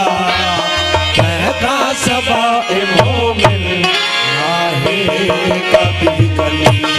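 Instrumental passage of Sindhi folk devotional music: a harmonium playing a melody over a hand drum whose deep bass strokes slide down in pitch, with sharp rhythmic strokes throughout.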